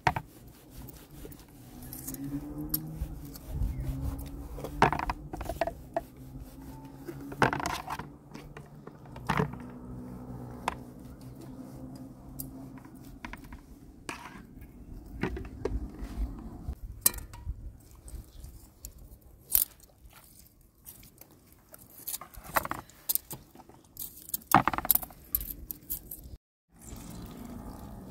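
Kitchen knife scoring whole trout on an aluminium tray: irregular clicks and scrapes of the blade against the metal tray, with the light jangle of metal bracelets.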